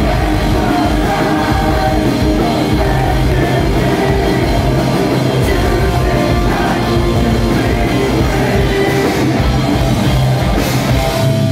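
Live post-hardcore rock band playing loud: distorted electric guitars, electric bass and drums, continuous throughout.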